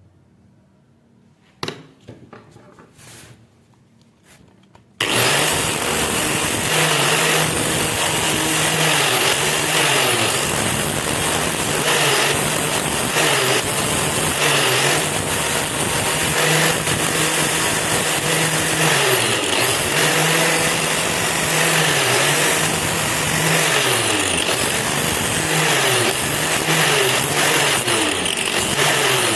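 A few clicks and knocks, then about five seconds in a small electric power tool switches on and runs steadily. Its pitch sags and comes back up several times, as if the tool were being loaded.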